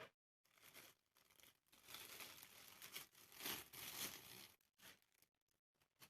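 Packaging being torn open and crinkled by hand: irregular rustling and tearing that comes and goes, strongest in the middle.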